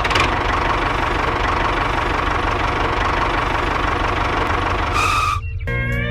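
Small engine running with a rapid knocking chug, ending about five seconds in with a brief high tone. Slide-guitar music starts near the end.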